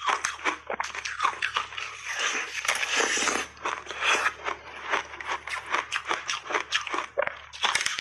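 Crunchy berry-flavoured block ice bitten and chewed close to a lapel microphone: a dense run of sharp cracks and crunches as the ice breaks between the teeth.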